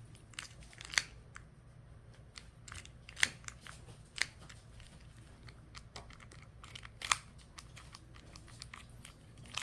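Small sharp clicks and light scraping of an ignition lock cylinder and its tumblers being worked by hand, with four louder clicks spread through, over a faint steady low hum. The cylinder isn't going in, with one tumbler not clearing.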